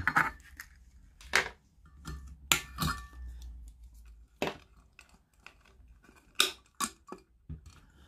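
Irregular clicks and metallic clinks from side cutters and wires being handled inside a metal lamp base, one clink about two and a half seconds in ringing briefly.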